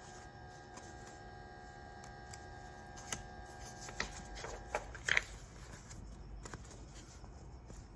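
A picture-book page being turned by hand: a few short paper rustles and clicks around the middle, the loudest just past halfway, over a faint steady hum.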